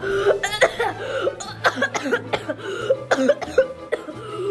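A person coughing and choking over and over in short, rough bursts, as if something swallowed with a drink has gone down the wrong way.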